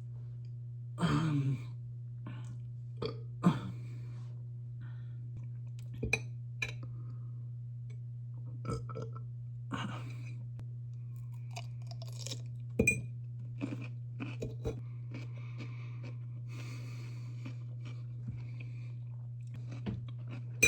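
A person chewing and crunching a dill pickle in irregular mouthfuls, over a steady low hum.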